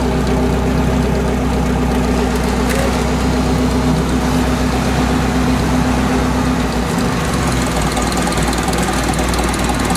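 UAZ off-road vehicle's engine idling steadily, its note changing slightly about seven seconds in.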